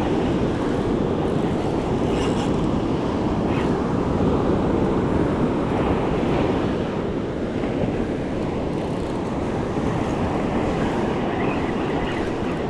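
Steady wind noise on the microphone, heaviest in the low end, over waves breaking in the surf.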